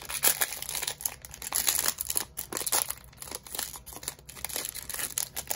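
Trading-card pack wrapper crinkling in irregular crackles as it is slowly worked open by hand.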